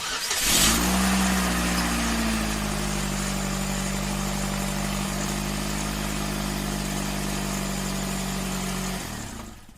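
Car engine starting about half a second in, its pitch settling within a second into a steady idle, then stopping about nine seconds in.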